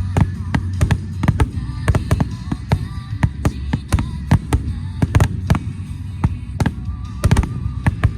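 Aerial firework shells bursting in rapid succession, a dense run of sharp bangs several times a second.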